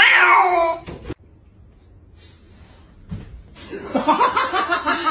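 A cat's loud meow falling in pitch at the start, then, after a short pause, a person laughing.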